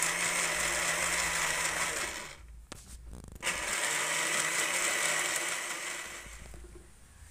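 Electric countertop blender running, puréeing noni fruit with a little water. The motor cuts out about two seconds in, a click follows, and it starts again about a second later, then winds down near the end.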